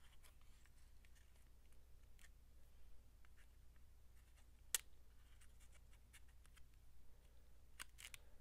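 Faint handling of paper and small craft pieces by hand: scattered light taps and rustles, with one sharper click about halfway through.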